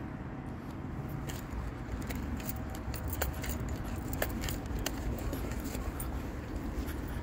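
City street ambience: a low, steady traffic rumble with irregular light clicking and jingling throughout, keys-like.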